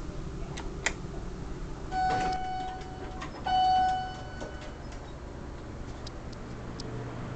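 Elevator hall arrival chime striking twice, about a second and a half apart. Each stroke is one clear ringing tone that fades over about a second, and the second is the louder. Two strokes are the usual signal for a car going down.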